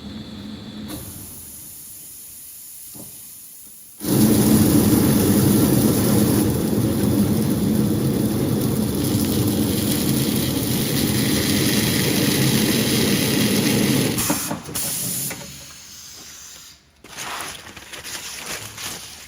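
Sanding belt slitting machine running with its knives cutting an abrasive belt: a loud, steady hissing, rushing noise that starts abruptly about four seconds in and runs for about ten seconds before dropping away to quieter, uneven noise.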